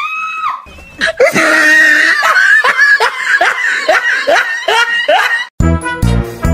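A cat's high, drawn-out yowl, then a person laughing hard in quick repeated bursts for several seconds. About five and a half seconds in, music with a steady beat starts.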